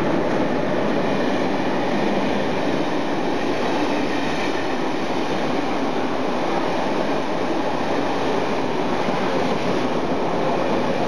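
Kowloon–Canton Through Train of double-deck coaches behind an electric locomotive running non-stop past the platform at speed: a loud, steady rush of wheels on rail.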